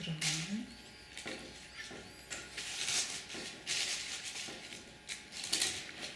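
Dried grass stems and crepe-paper flowers rustling as they are handled and pushed into a bouquet, in a few short bursts about a second in, midway and near the end.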